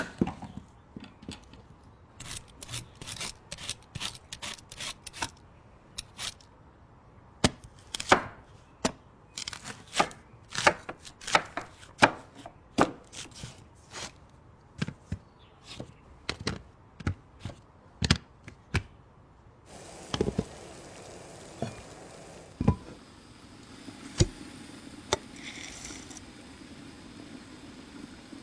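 Knife chopping on a cutting board in quick, irregular strokes. After about twenty seconds the chopping stops, leaving a few scattered knocks over a faint steady hiss.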